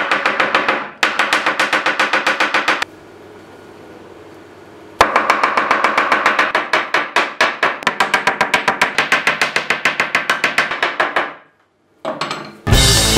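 Rapid, even tapping, about six knocks a second, on concrete-filled 3D-printed planter molds, settling the freshly poured wet concrete. It pauses for about two seconds after the first burst, then goes on.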